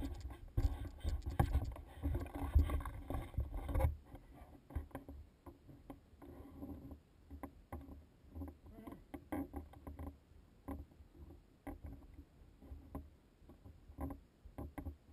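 Footsteps crunching and scraping on loose rock and gravel, heard as irregular clicks and scuffs, with a low rumble on the body-worn GoPro's microphone for the first four seconds.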